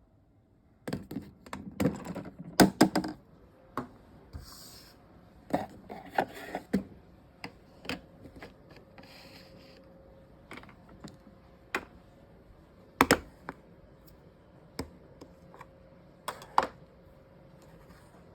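Plastic toy kitchen pieces being handled: irregular sharp taps and clatters, thickest in the first few seconds, then sparser knocks with a few brief rustles.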